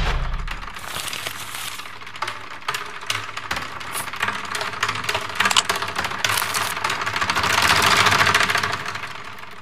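Sound-designed kitchen-prep effects: a quick, irregular string of sharp clicks, taps and scrapes, then a hiss that swells about seven seconds in and fades away near the end.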